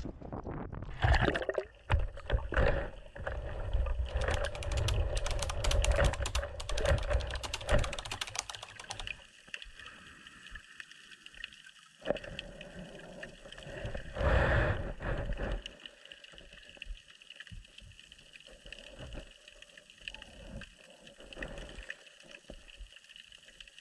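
Seawater splashing and gurgling around a GoPro as it is lowered under the surface, with many small clicks. The sound then turns muffled and quieter underwater, with a faint steady hum and one brief swell of water noise about midway.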